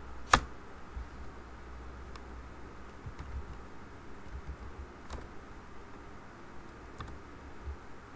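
A few scattered computer keyboard keystrokes: one sharp, loud click about a third of a second in, then fainter single clicks a couple of seconds apart, over a low steady hum.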